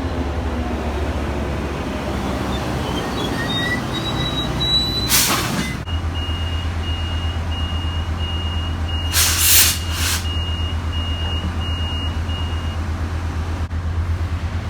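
Passenger train standing with its diesel locomotive's engine running in a steady low hum. Two short bursts of air hiss come about five and nine seconds in. A high beep repeats for several seconds in the middle.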